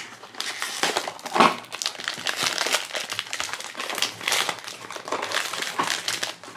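Silver foil blind-box bag crinkling as it is slid out of its cardboard box and handled, with irregular crackles and a sharper one about a second and a half in.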